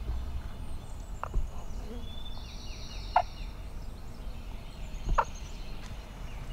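Wild turkeys gobbling: three short calls about two seconds apart, with songbirds singing higher up in the background.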